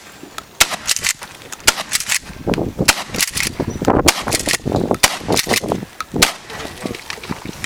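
Shotgun fired in a rapid, unevenly spaced string of sharp shots as a shooter runs a course of fire.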